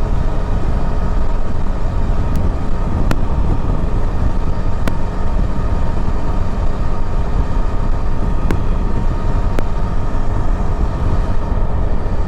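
Yezdi Adventure motorcycle's single-cylinder engine running under way, mixed with a steady low rush of wind noise, with a few sharp clicks scattered through.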